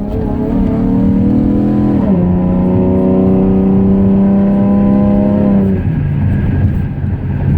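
2015 Chevrolet Camaro accelerating hard, the engine note climbing, dropping with a gear change about two seconds in, climbing again, then falling back to a lower hum near the end as the throttle eases.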